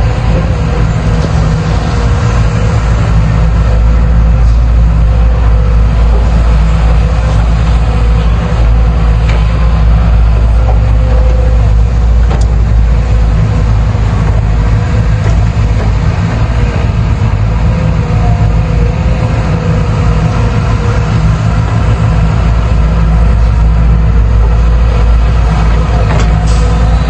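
JCB excavator's diesel engine running steadily and loudly, a deep unbroken drone.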